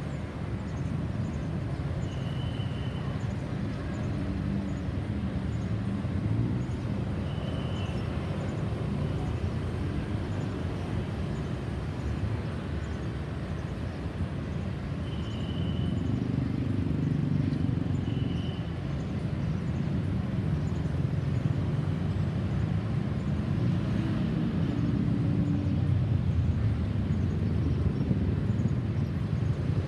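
Steady rumble of road traffic, swelling as vehicles pass about halfway through and again near the end, with no siren sounding. A short high beep is heard four times over it.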